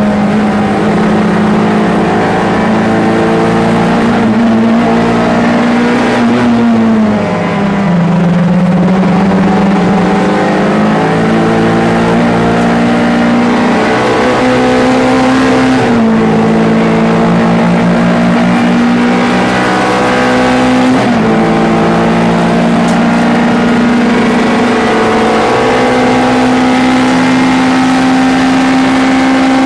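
MG ZR 105 race car's 1.4-litre four-cylinder engine running hard under load. Its pitch sags about seven seconds in and then climbs back slowly, with abrupt shifts in pitch near the middle and again about two-thirds of the way through.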